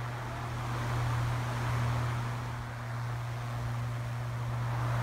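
Large drum fan running: a steady low motor hum under a rushing of air that swells and eases gently.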